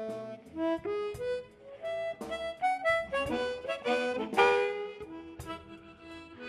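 Blues harmonica played live: a run of short notes at shifting pitches, with a note bent upward about four seconds in.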